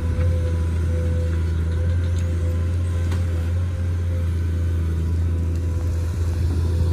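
Komatsu hydraulic excavator's diesel engine running steadily under working load while the bucket digs and the arm swings: a heavy low drone with a steady higher whine above it.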